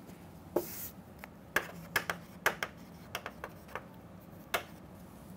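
Chalk writing on a chalkboard: a string of about a dozen sharp taps and short scratches as the strokes of a formula go down, with one brief hissing scrape near the start.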